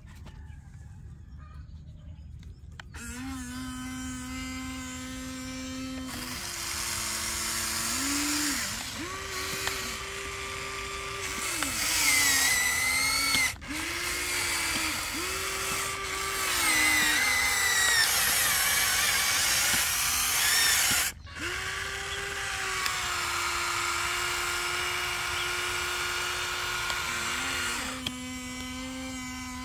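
Electric motors and gearboxes of a Huina radio-controlled excavator whining as it digs and lifts dirt, starting about three seconds in. The pitch steps up and down as the boom, arm and bucket functions start and stop, with two brief breaks.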